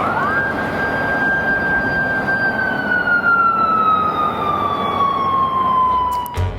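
Japanese police motorcycle siren sounding a single wail that rises quickly, holds, then slowly falls, over a steady rush of road noise. The siren cuts off just before the end.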